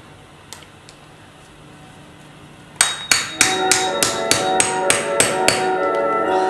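Claw hammer striking nail heads, driving common nails into a nail-studded book. After a couple of quieter seconds comes a quick run of sharp strikes, about three a second.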